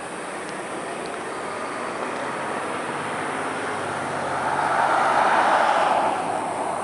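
Road traffic noise: a passing vehicle swells to its loudest about five seconds in, then fades.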